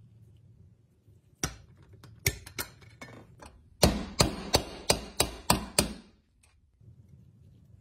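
Sharp metallic clicks from a socket wrench tightening a small nut on a toy tow truck's boom: a few scattered clicks, then a quick run of about seven, roughly three a second.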